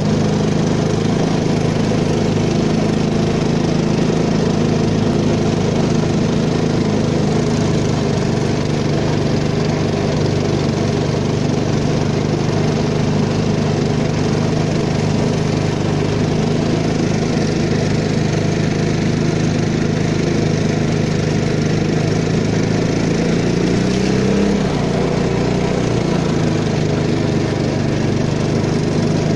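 Small long-tail engine of a peque-peque river canoe running steadily under way. About three-quarters of the way through, its pitch briefly rises and then dips before settling back.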